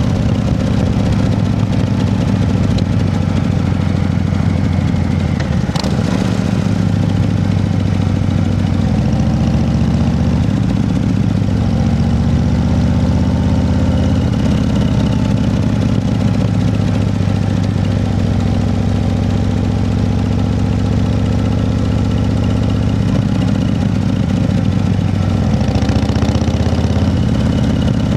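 An engine running steadily, its pitch shifting slightly now and then, with a sharp click about six seconds in.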